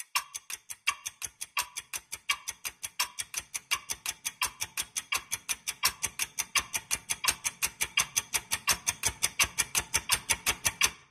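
Clock-like ticking sound effect of a film trailer, several ticks a second, quickening and growing louder, each tick with a deep thud under it and a short ping on every few. It cuts off suddenly near the end.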